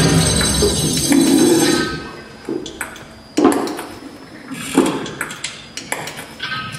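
Light boxes knocked and set down on a wooden stage floor: a handful of sharp, separate knocks with a short ring, coming after a louder sustained sound that drops away about two seconds in.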